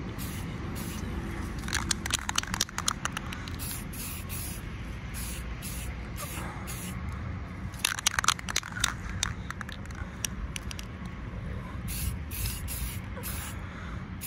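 Aerosol spray-paint can spraying in many short bursts of hiss. Twice, about two seconds and eight seconds in, there is a spell of rapid clicking, the loudest moments.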